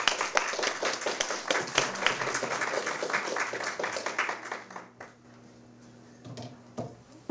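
Audience applauding, a dense patter of many hands clapping that dies away about five seconds in. A few soft knocks follow near the end.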